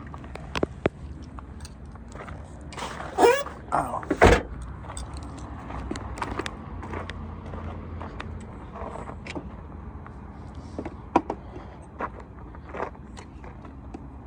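Scattered clicks and knocks of hands working on a car, with a squeak about three seconds in and one heavy thump just after four seconds, over a low steady hum.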